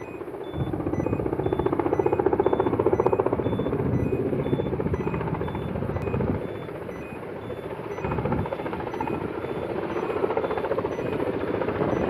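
Firefighting helicopter's rotor beating rapidly and steadily overhead, dipping in level about halfway through and building again after about eight seconds.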